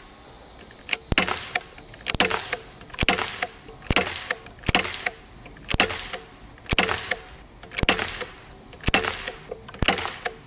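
Daisy Powerline 5501 CO2 blowback BB pistol firing about ten shots in steady succession, roughly one a second. Each shot is a sharp crack with a short rattle right after it.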